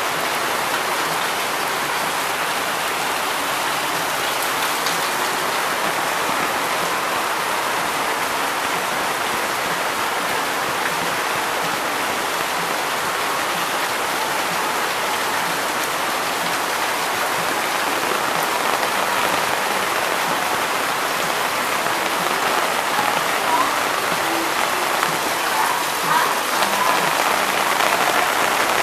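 Heavy rain pouring down in a steady, dense hiss that grows a little louder about two-thirds of the way through.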